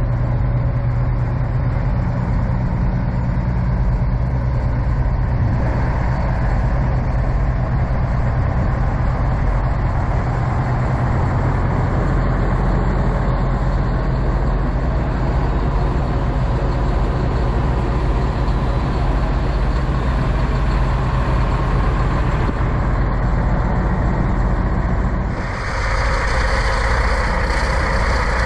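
Diesel semi-truck engine idling with a low, steady drone. About 25 seconds in the sound changes abruptly and a brighter hiss joins the engine.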